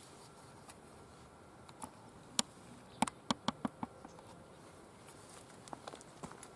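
Firewood burning in a wire-mesh fire pit, crackling with scattered sharp snaps, including a quick run of about five snaps some three seconds in.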